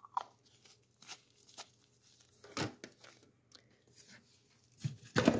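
Small handling noises: scattered plastic clicks and taps as a bottle of plating solution is capped and put down, with rustling on a paper towel and a louder cluster of knocks near the end.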